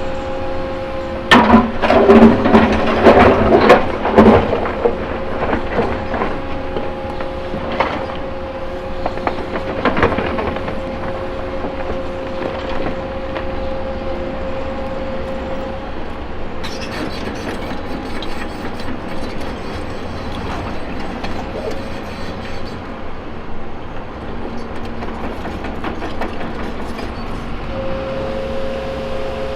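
CAT 312E L excavator's diesel engine and hydraulics running with a steady whine, while rocks clatter and bang against the steel bucket in a loud burst of knocks about a second in that lasts a few seconds. A couple of single clanks follow later.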